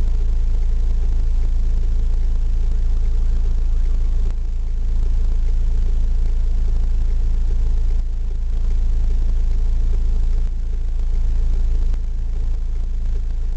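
Steady low vehicle engine rumble heard from inside a car, with small dips and rises in level every few seconds.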